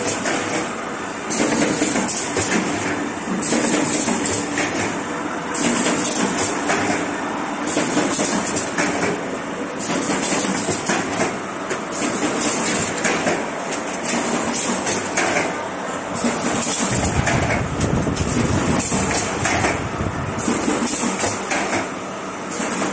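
Automatic corrugated cardboard partition assembly machine running: a continuous mechanical clatter, with a burst of higher rattle repeating about every two seconds and a deeper rumble joining for a few seconds past the middle.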